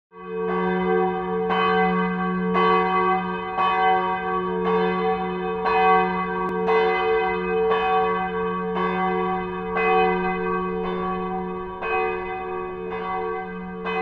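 A church bell tolling, struck about once a second, each stroke ringing on so that its low hum note carries through between strokes.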